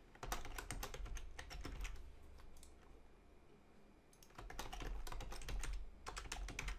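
Computer keyboard typing in two short runs of keystrokes, the second starting about four seconds in.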